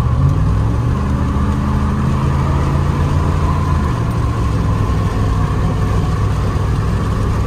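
Dodge Ram's 5.9-litre gas V8 pulling under acceleration, heard from inside the cab. The engine note climbs over the first couple of seconds, then drops to a lower note about four seconds in. The engine runs on freshly replaced spark plugs and wires.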